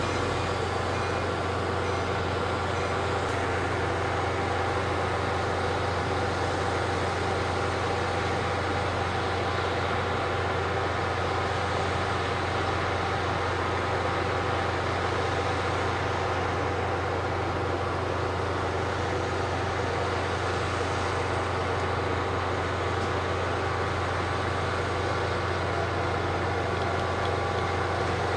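Standing NJ Transit passenger train's locomotive running at rest, a steady hum of many held tones with a strong low drone.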